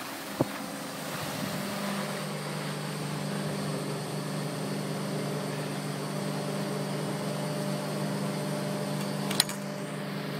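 Steady machine hum made of several low, even tones, from the drive machinery of a ski lift running at the foot of the piste. A short sharp crackle comes about nine seconds in.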